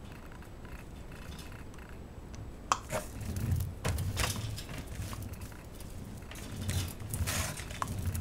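Adhesive lint roller knocked and rolled against the floor and the wire pen, with clicks and scraping rustles starting about three seconds in, as puppies scramble on the plastic pen mat.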